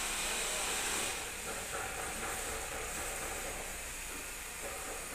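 Steady hiss of background noise, a little brighter in the first second, with no distinct event.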